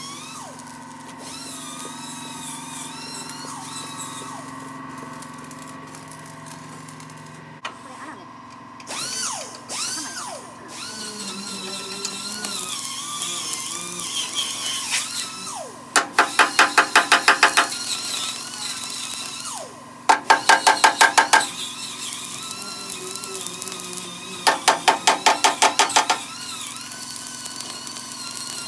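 Stick (arc) welding of a steel patch onto a crane column: three short welding runs, each a loud rapid crackle pulsing about six times a second, starting about halfway through, over background music.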